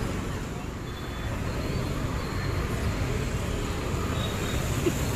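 Steady city road traffic noise: scooters and cars passing on the road.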